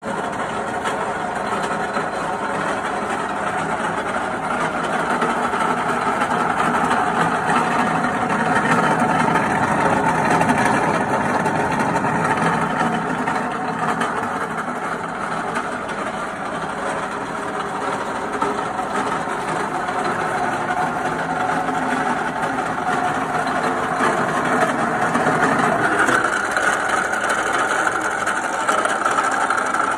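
A 38 mm pillar drilling machine running with no load, its motor and V-belt pulley drive turning the spindle with a steady mechanical hum.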